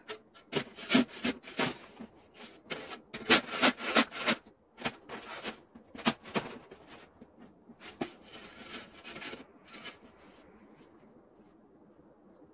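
Metal snow shovel scraping over packed snow, an irregular run of quick scraping strokes that stops about ten seconds in.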